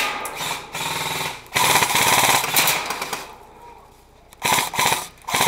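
Airsoft guns firing rapid full-auto bursts, a fast mechanical rattle: two long bursts of about a second and a half each, then a couple of short bursts near the end.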